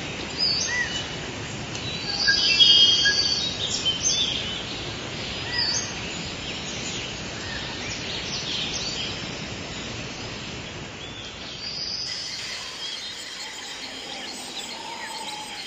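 Forest ambience: many birds chirping and whistling over a steady background hiss, with the busiest, loudest run of calls about two to three seconds in.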